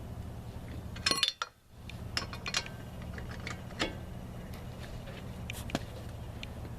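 Sharp metal clinks of a lug wrench on the wheel's lug nuts as they are tightened. The loudest cluster comes about a second in, with scattered single clinks after it, over a steady low hum.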